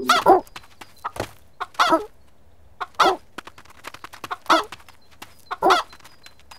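Hen clucking: five short, loud clucks spaced a second or so apart, with faint light ticks between them.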